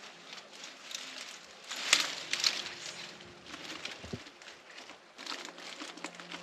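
Footsteps crunching along a rough brushy trail, an irregular run of steps with two heavier ones about two seconds in.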